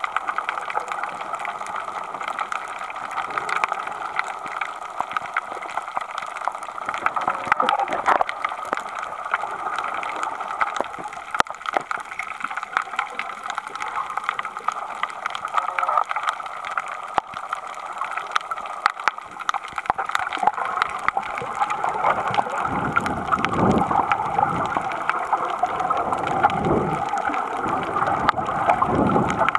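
Muffled underwater water noise heard through a submerged camera: a steady hiss with frequent faint clicks. From about twenty-two seconds in, a series of low rushing surges comes in.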